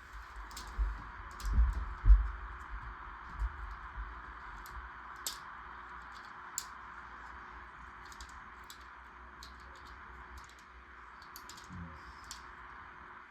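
LEGO pieces being handled and pressed together: scattered small plastic clicks and taps, with a few dull thumps in the first couple of seconds and another near the end.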